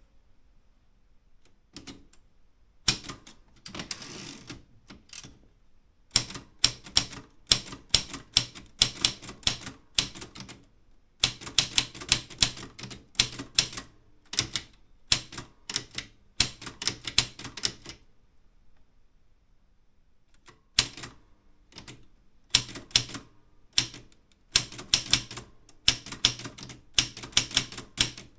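Typewriter keys being struck in quick runs of sharp clacks, broken by short pauses, with a longer pause of a couple of seconds past the middle.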